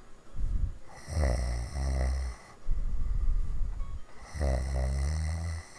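A woman snoring hard: two long, low snores about three seconds apart, with rough, noisy breaths between them.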